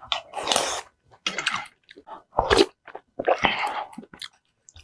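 Close-miked eating sounds: broth sipped from a wooden spoon and chewing, in about four short bursts with quiet gaps between them.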